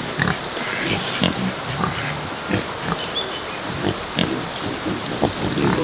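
Pigs grunting: a string of short, irregular grunts.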